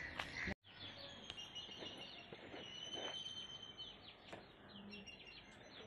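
Faint outdoor ambience with birds chirping and calling, broken by a brief dropout about half a second in.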